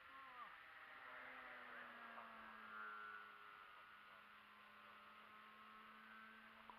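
Faint whine of the MXS model aerobatic plane's 6S electric motor and propeller in flight. The pitch drops sharply about half a second in, then holds steady and eases slightly lower.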